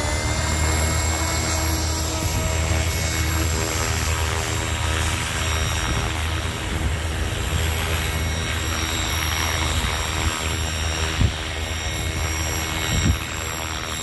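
Radio-controlled helicopter's motor and main rotor running at a steady high speed, a whine with several tones, as it lifts off into a low hover. Two brief thumps near the end.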